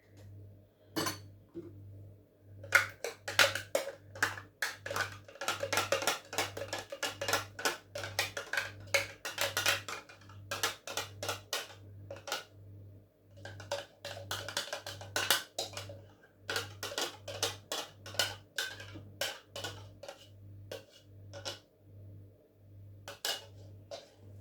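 Utensil clattering and scraping against a dish in quick, irregular knocks, over background music with a steady low beat.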